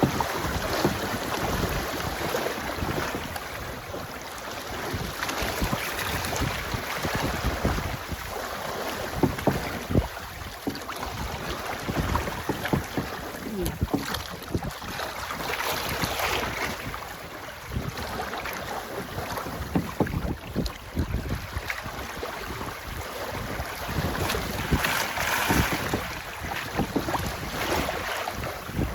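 Wind buffeting the microphone in uneven gusts over the rush and splash of water aboard a sailboat under way. The water noise swells louder twice, about halfway through and again near the end.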